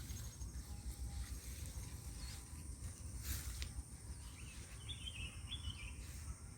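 Faint outdoor background noise: a low rumble under a steady high-pitched tone, with a brief hiss a little over three seconds in and a few short chirps about five seconds in.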